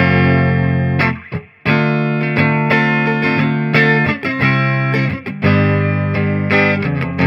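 Electric guitar, a Harley Benton TE-52, played clean through the clean channel of a Peavey Valve King VK112 valve amp. Strummed chords ring out, with a short break about a second in.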